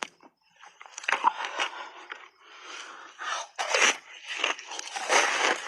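Block ice being bitten and chewed, crunching in irregular bursts that start about a second in and come thicker toward the end.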